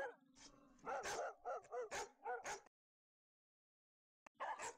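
A dog barking in a run of short, high yaps, about two a second. The barks cut off suddenly partway through, leaving dead silence, and start again just before the end.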